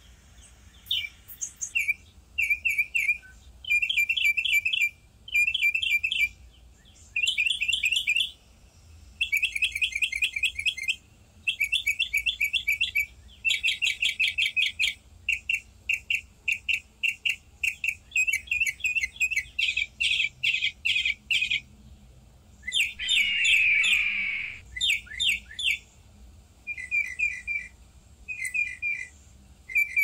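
Small songbirds chirping in quick, rapid trains of short chirps; each run lasts about a second and starts again every second or two. About two-thirds of the way through there is one harsher, scratchier call.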